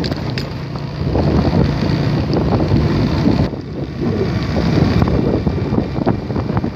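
Wind buffeting the microphone over a motorcycle running along a dirt road, a loud, dense rumble with a faint steady engine hum underneath.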